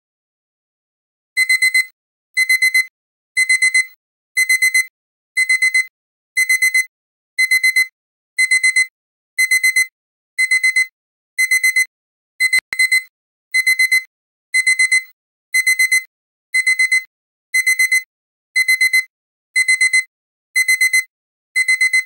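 Digital alarm-clock beeping that marks the end of a countdown timer. It starts about a second and a half in: a high electronic tone in quick groups of about four beeps, repeating about once a second.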